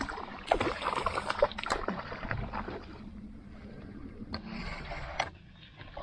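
Handling noise aboard a small skiff: a cluster of knocks and clicks from fishing gear and the boat in the first two seconds. Then a quieter stretch with two sharp clicks near the end.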